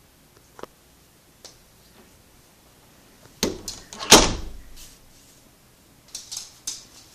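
An interior door being handled: two faint clicks, then two sharp knocks about three and a half and four seconds in, the second the loudest, and a few lighter clicks near the end.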